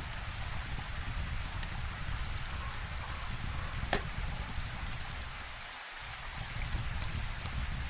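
Steady rainfall with scattered crackles from a wood fire, and one sharper pop about four seconds in.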